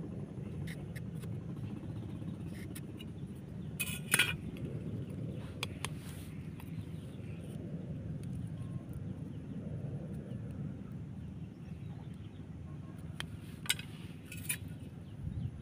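Scattered light clicks and taps of a machete blade and bamboo strips being shaved and fitted together on a wooden block, with a sharp cluster of clicks about four seconds in and a few more near the end, over a steady low rumble.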